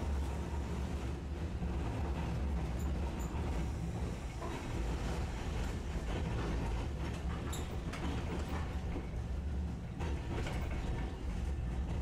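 Cabin noise of a Tosaden streetcar under way: a steady low rumble from the running gear, with scattered creaks and rattles from the car body and doors.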